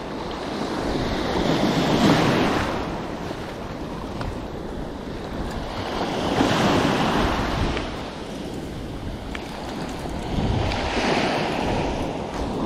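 Small sea waves breaking and washing up a sandy beach in three surges, about four to five seconds apart, with wind rumbling on the microphone.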